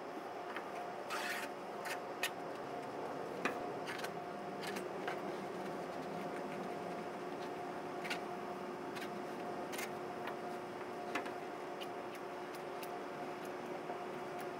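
Scattered light clicks and brief scrapes of billiard cloth being cut and handled with a knife around a pool table pocket, over a steady hum.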